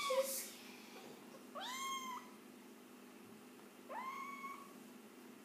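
Kitten mewing three times, about two seconds apart: short high calls that swoop up and then hold.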